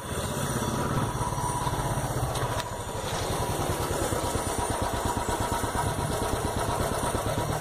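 Royal Enfield Bullet 350 BS4's single-cylinder 346 cc engine running with its steady, even exhaust thump.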